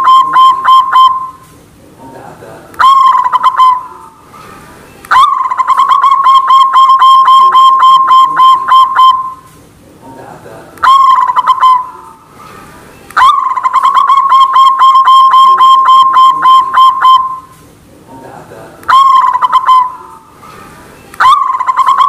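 White zebra dove (perkutut) cooing its song: phrases of rapid staccato coos, each a short opening note followed by a trill of quick notes lasting about four seconds, repeated with short pauses between them. Three full phrases, with another starting near the end.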